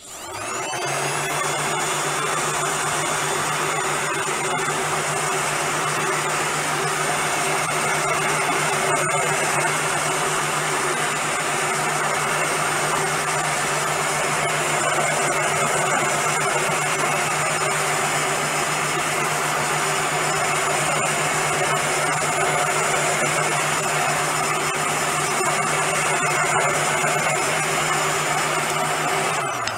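Electric heat gun running steadily, a low motor hum under a rush of blown hot air. It switches on at the start, its motor whining up to speed within about a second, and switches off at the end, winding down.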